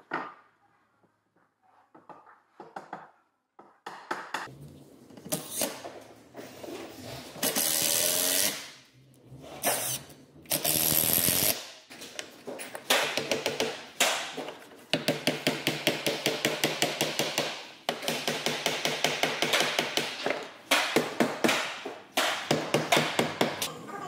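Mallet hammering on larch floor boards, knocking the tongue-and-groove planks of a hot-tub bottom together: many sharp wooden knocks in quick runs, with a couple of short bursts of a power tool near the middle.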